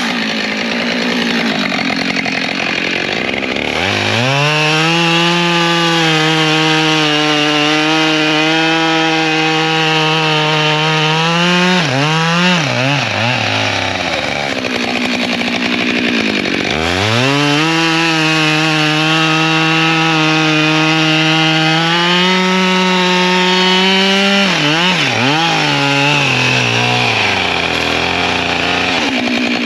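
Two-stroke chainsaw cutting firewood. It twice revs up to a steady full-throttle run of about eight seconds, the pitch climbing a little as each cut finishes, then drops back and wavers toward idle between cuts.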